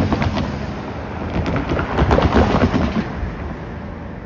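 A car driving across a railroad grade crossing, its tyres thumping and clattering over the rails and crossing panels, loudest about two seconds in and dying away after about three seconds.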